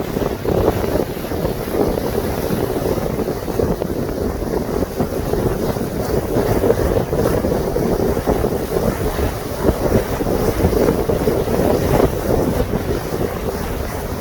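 Wind buffeting the microphone over the steady rush and low rumble of a boat under way on the water.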